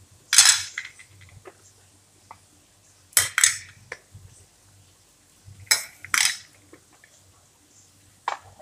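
Plastic snap-lock spice container lids being unclipped and lifted open, giving clusters of sharp plastic clacks: near the start, about three seconds in, about six seconds in and near the end.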